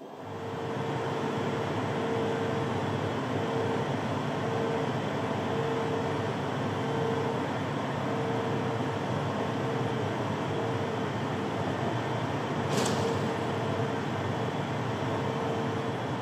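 John Deere S680 combine running with its Geringhoff Harvest Star 660 grain header engaged. It makes a steady machinery noise with a hum that swells and fades about once a second, and a single sharp click about 13 seconds in.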